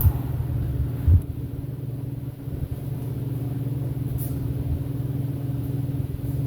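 Table saw running with no load just after a rip cut through a hardwood board ends. There is a knock at the start and a sharper thump about a second in, then a steady low motor hum.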